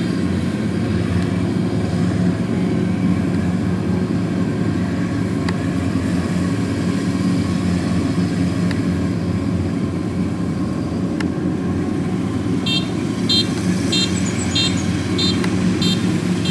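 An engine runs steadily with an even drone. From about 13 s in, short high beeps repeat about twice a second over it.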